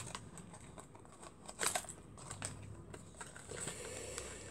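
Handling noise from small bicycle headset parts: a few sharp clicks and light knocks, with a brief cluster of clicks about a second and a half in.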